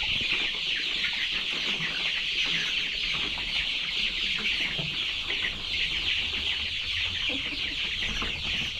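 A flock of chickens calling all at once: a steady chorus of many overlapping high-pitched cheeps and clucks.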